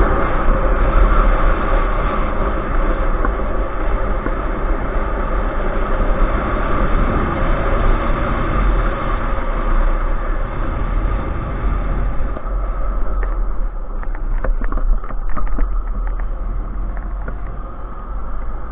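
Motorcycle riding along a road, heard from an onboard camera: a steady rush of engine and wind noise. About twelve seconds in, the upper hiss fades as the bike slows into a car park, and scattered light clicks appear.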